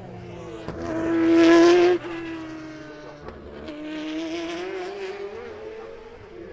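Le Mans prototype or GT race car passing close by on a wet track. Its engine note rises to a loud peak and cuts off suddenly just before two seconds in. A fainter engine note then climbs in pitch again about four seconds in, with a hiss over both.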